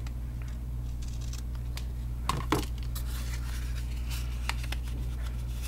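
Small Paper Snips scissors trimming a thin sliver off a cardstock piece: a few light clicks and two sharper snips about two and a half seconds in, over a steady low hum.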